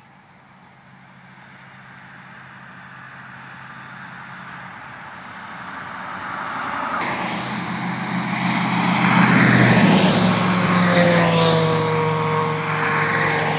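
An engine approaching and passing by, growing steadily louder over about ten seconds, its tone sliding down in pitch near the end.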